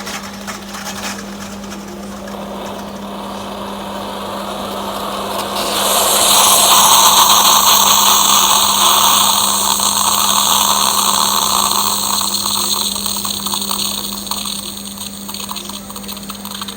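Bosch Tassimo pod coffee machine brewing: its pump hums steadily, and about six seconds in a loud hiss of hot water and steam forcing through the pod joins in, then eases off over the last few seconds as the cycle winds down.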